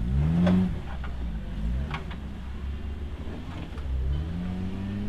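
Off-road trial vehicle's engine revving under load, climbing sharply in pitch about half a second in and again near the end, with a couple of short knocks in between.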